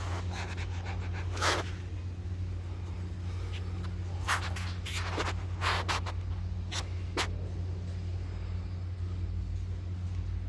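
Concrete pump truck's engine running steadily with a low hum. Several short, sharp clicks or hisses come at irregular intervals, loudest about one and a half seconds in and again between four and seven seconds.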